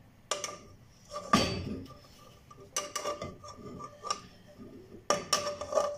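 A spoon knocking and scraping against an empty nonstick pot as a knob of butter is tapped off into it: a series of sharp clinks, the pot ringing briefly after several of them.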